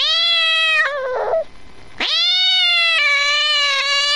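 A cat meowing: two long, drawn-out meows, the first falling in pitch at its end, the second longer one starting about two seconds in.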